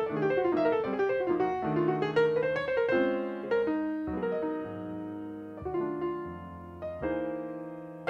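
Piano music: quick runs of notes for the first few seconds, then slower held chords that grow quieter toward the end.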